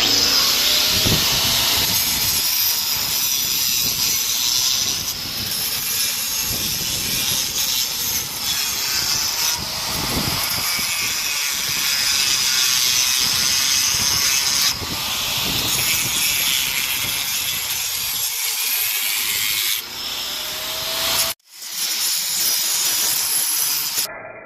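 Power saw cutting steadily, its pitch sweeping now and then as the motor loads and unloads, with a brief break a little past 21 seconds before it resumes.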